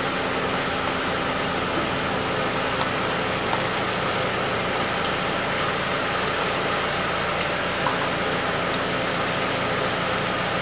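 Steady mechanical hum of an idling engine, with a few faint ticks.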